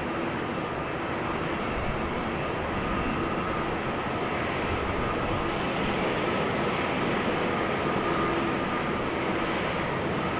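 Jet engines of an Airbus A320 landing and rolling out on the runway: a steady rumble with a faint whine, getting slightly louder a few seconds in.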